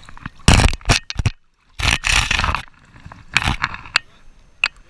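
Bursts of loud scraping and rubbing handling noise on the camera as it presses against the wet skin of a large sturgeon and the angler's rain gear. The longest rub comes about two seconds in, and the sound cuts out briefly just before it.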